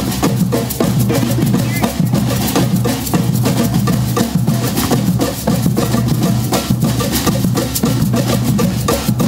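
A percussion ensemble playing a dense, steady drum rhythm on stand-mounted barrel drums, with many hits a second at an even loudness.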